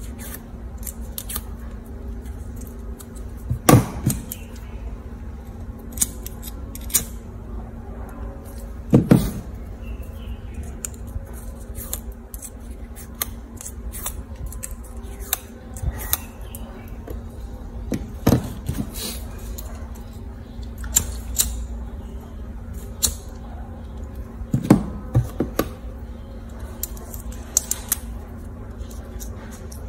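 Small scissors snipping a flattened green plastic drinking straw into a leaf shape: scattered light snips and clicks, with a few louder ones, over a low steady hum.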